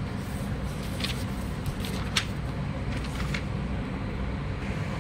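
Steady low hum and background noise, with a few faint short hisses about a second apart.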